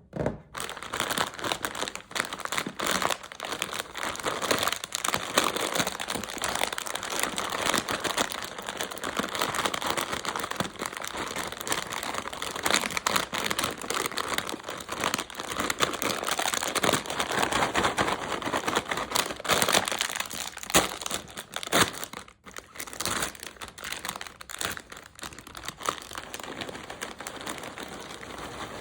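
Plastic Cheetos snack bags crinkling and rustling as they are handled, a dense crackle of small clicks with a short break about three quarters of the way through.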